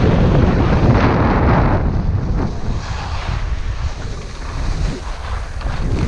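Wind buffeting a skier's action-camera microphone at speed, with skis hissing and scraping over packed snow through the turns. Loudest about a second in, easing off in the second half.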